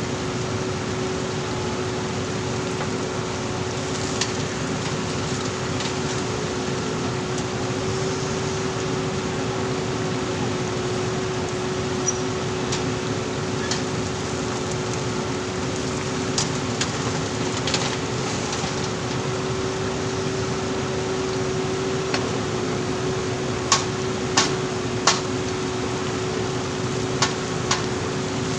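JCB backhoe loader's diesel engine running steadily with a constant hum, with scattered sharp knocks and clanks of the working machine, more frequent in the last few seconds.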